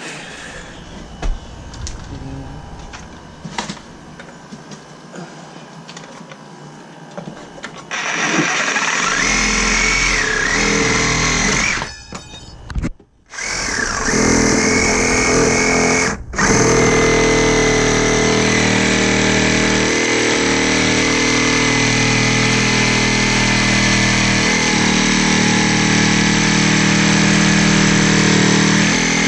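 Handheld power tool running: a few light clicks and knocks first, then about eight seconds in the motor starts with a wavering whine. It cuts out twice briefly, then runs steadily under load.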